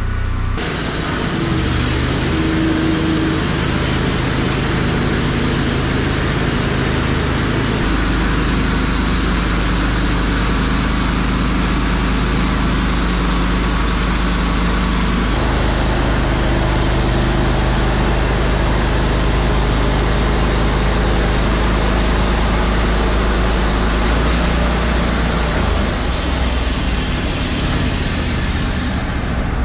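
Wood-Mizer LT15 Wide portable bandsaw mill running, its band blade sawing a thick board off an ash log. A steady engine hum with a dense sawing noise over it, the sound shifting slightly a few times as the cut goes on.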